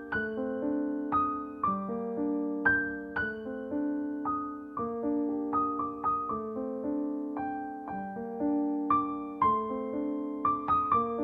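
Background piano music: gentle notes and chords struck about twice a second, each fading away.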